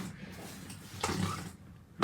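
Slime being squeezed and worked by hand, wet squelching with one louder squish about a second in.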